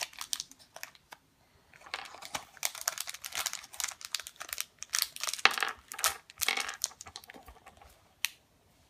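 Plastic toy packaging crinkling and tearing as it is opened, with many sharp clicks and crackles; it starts after a short pause and dies away near the end with one last click.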